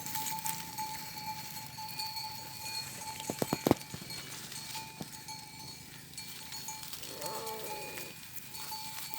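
Grazing livestock with neck bells: a quick run of four loud sharp knocks about three and a half seconds in, and one short bleat about seven seconds in, over a faint steady high tone.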